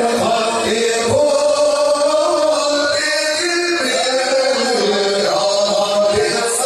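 Male vocal group singing an Arabic madih (praise song for the Prophet) in a slow, chant-like melody, the voices holding long notes that glide slowly from one pitch to the next.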